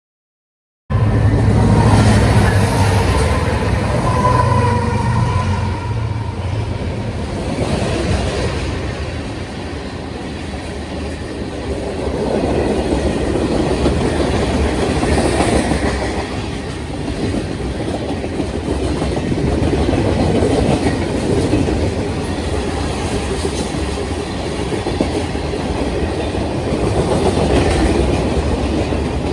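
Union Pacific manifest freight train's cars rolling past close by: a steady rumble and clatter of steel wheels on the rails, cutting in suddenly about a second in.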